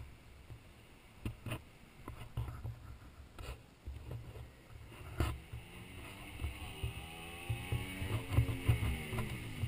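Wind buffeting an action camera's microphone as a low rumble, with scattered knocks and clicks as the camera is handled. In the second half a pitched hum falls in pitch and drops away steeply near the end.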